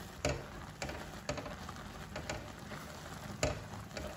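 A spatula stirring and tossing Maggi noodles with scrambled egg in a wok, with a few irregular scrapes and knocks against the pan over a soft frying sizzle as the noodles cook down.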